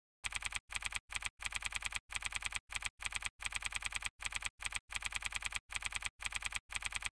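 Keyboard typing sound effect: rapid key clicks in short runs with brief gaps, starting just after the opening silence, keeping time with the caption appearing letter by letter.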